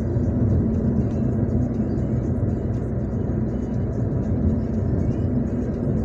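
Steady engine and tyre rumble heard inside a car cruising at highway speed.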